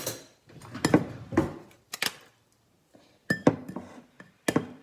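Eggs being cracked into a glass mixing bowl: a series of separate sharp clinks and taps of eggshell and a spoon against the glass.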